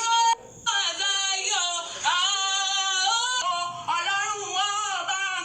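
A woman's voice singing in long, held, wavering notes, with a brief pause about half a second in.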